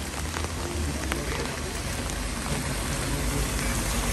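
Heavy rain falling on a wet street and pavement, a steady hiss with scattered drop ticks. The sound of traffic on the wet road swells gradually toward the end as a car draws near.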